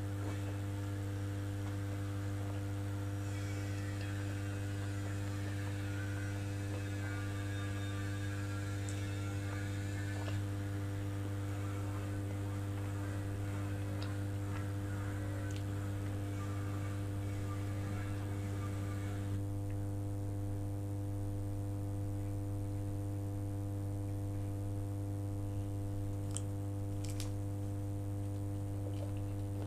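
Loud, steady electrical mains hum with a stack of overtones from a faulty microphone, drowning out faint eating sounds and a few small clicks. The faint hiss above the hum drops away about two-thirds of the way through.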